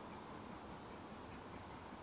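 Faint, steady outdoor background hiss with no distinct events.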